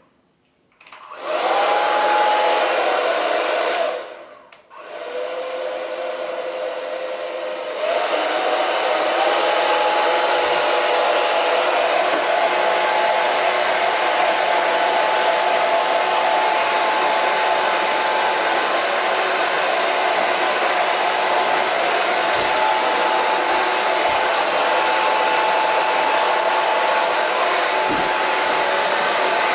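JMW Phantom Prime MS6003C brushless (BLDC) motor hair dryer switched on, blowing with a steady rush of air and a whine. About four seconds in it cuts out briefly and comes back quieter with a lower whine. About eight seconds in it steps up to a louder airflow with a higher whine that holds steady.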